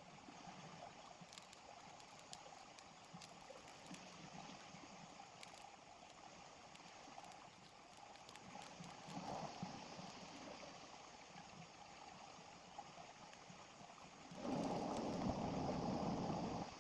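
Small river flowing steadily, a low continuous babble of water. About two seconds before the end a much louder rushing noise comes in and then stops abruptly.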